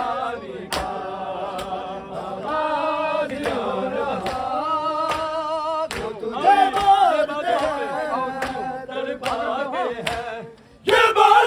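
Men's voices chanting a nauha, a Shia mourning lament, with long, wavering held notes. Near the end the voices break off briefly, then come back in loudly.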